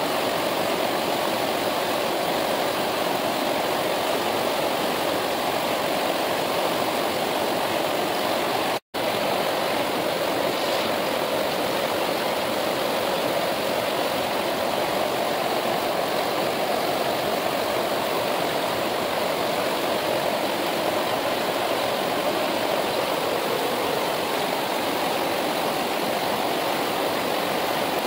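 Mountain river flowing, a steady, even rush of water. It cuts out for an instant about nine seconds in.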